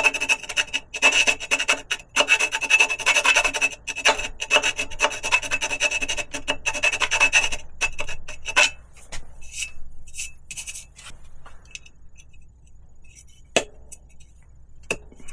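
Small hand file rasping around a drilled hole in a metal bicycle frame tube, in repeated strokes, to open up and deburr the hole for a rivnut. The filing stops about two-thirds of the way through, and two sharp clicks follow near the end.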